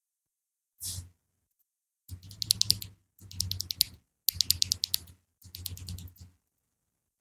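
Mechanical keyboard with HMX Yogurt V2-S linear switches being typed on in four quick bursts of keystrokes with short pauses between them, after a brief soft hiss about a second in.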